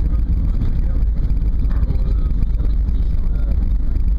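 Steady low rumble inside the cabin of an Airbus A320 on the ground after landing, with faint passenger voices in the background.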